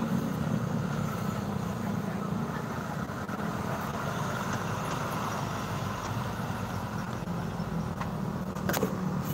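Road traffic with a heavy vehicle's low engine rumble, loudest at the start, easing off, then building again near the end. A single sharp click comes shortly before the end.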